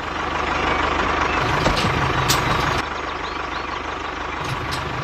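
Tractor-type engine running steadily at idle, with a fast, even low chugging beat.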